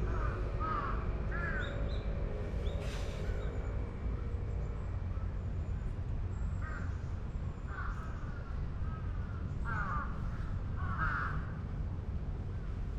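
Crows cawing repeatedly: two pairs of caws in the first two seconds, then a series of caws from about six seconds in to about eleven seconds, over a steady low rumble.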